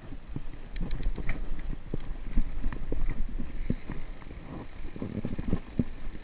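Mountain bike rolling fast down a rocky dirt trail: tyres running over loose dirt and stones under a steady low rumble, with many irregular knocks and rattles from the bike over bumps.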